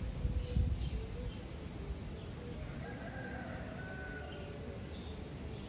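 A bird's drawn-out call lasting about a second and a half, starting near the middle, with short high chirps of small birds before and after it over a low rumble.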